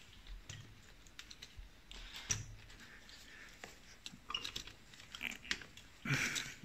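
Hands handling a motorcycle's carburetor and its rubber intake boot and hose clamp: scattered small clicks and soft knocks, a sharper click about two seconds in and a louder brief rustle near the end.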